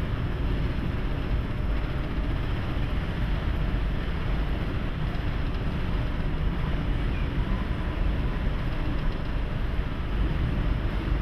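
Steady, loud rumbling and rushing noise aboard the Great Lakes freighter MV Joseph L. Block as it runs through rough seas, with no single distinct event standing out.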